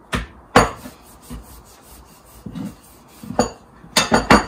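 Wooden rolling pin and hands working naan dough on a wooden board: rubbing and scraping, broken by sharp knocks, the loudest about half a second in and a quick run of three near the end.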